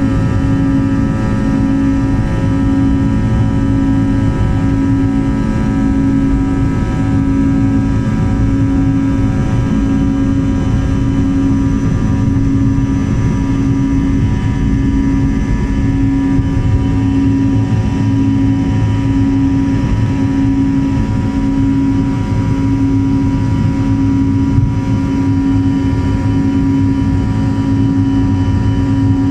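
Airliner jet engines heard from inside the passenger cabin: a loud, steady hum with a slow, regular throb.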